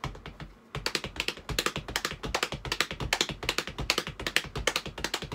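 A left-foot thud on the floor, then, from about a second in, a fast, even stream of taps: hands patting the thighs and sneakered feet tapping the floor in a drum-practice hand-foot pattern played without a drum kit.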